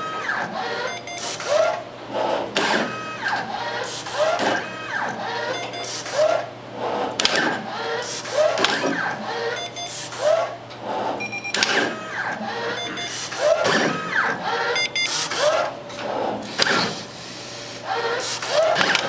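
Contact Systems CS-400E through-hole component locator cycling, its motors and rotating clinch head making a string of short moves about once every second or so. Each move is a quick rising whine with a clack, like a printer carriage.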